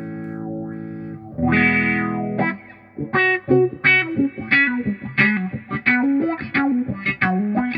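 Electric guitar played through a Vox V846 hand-wired wah pedal at its stock setting, slightly distorted. A held chord has its upper tones swelling and fading as the wah rocks, a new chord is strummed about a second and a half in, and from about three seconds in come quick, short, funky stabs with the wah sweeping up and down.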